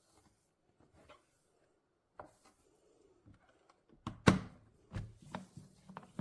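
Scattered light knocks and clicks of objects being handled and set down, with a louder cluster of thumps starting about four seconds in and the sharpest knock just after.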